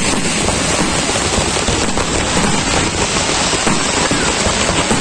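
Aerial fireworks bursting overhead in a dense, continuous crackle of many small pops, steady and loud, with no single big bang standing out.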